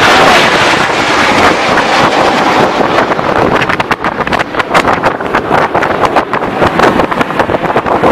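Roar of a formation of Frecce Tricolori Aermacchi MB-339 jets flying past overhead, with wind buffeting the microphone in rapid gusts from about three seconds in.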